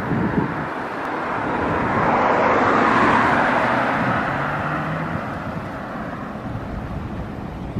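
A road vehicle passing by, its engine and tyre rush swelling to a peak about three seconds in and then slowly fading away.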